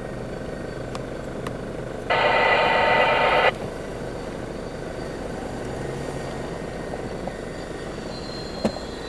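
A vehicle horn gives one long steady blast about two seconds in, lasting over a second. Under it runs the steady low drone of an off-road 4x4's engine working across a snowy slope.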